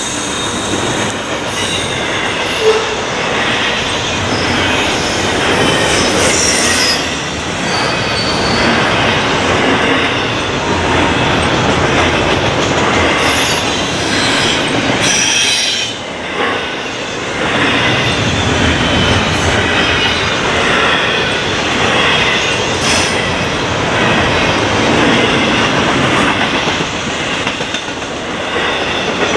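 Double-stack intermodal freight cars rolling past in a steady rumble of steel wheels on rail, with high-pitched wheel squeal coming and going as the cars round the curve.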